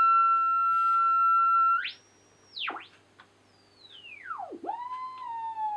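Heterodyne whistle from an R1155 receiver's beat frequency oscillator beating against the BC221 frequency meter's unmodulated carrier. A steady high whistle jumps up in pitch near two seconds, then swoops down towards zero beat twice as the receiver's tuning is turned across the signal. It settles on a lower whistle that slowly sinks in pitch.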